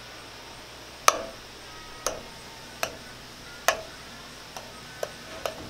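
A utensil knocking against a glass mixing bowl while stirring a foamy glue-and-shaving-cream slime mix: seven sharp clinks with a short ring, about a second apart and coming closer together near the end.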